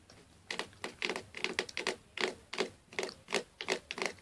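A fast, irregular run of sharp taps or clicks, about three or four a second, starting half a second in: a made-up "creepy" mystery noise in a children's toy-pony play.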